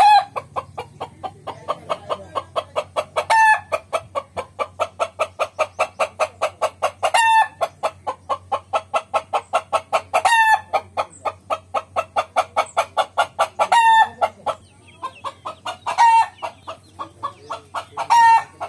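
Desi chickens clucking in a fast, even series, about five clucks a second, broken about every three seconds by a short, louder call, seven times in all.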